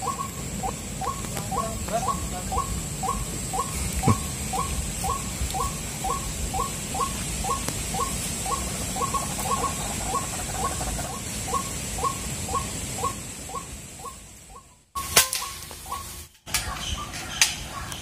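White-breasted waterhen (ruak-ruak) calling: one short note repeated evenly about twice a second, over a steady high-pitched whine. The calling breaks off about fifteen seconds in, followed by a few clicks.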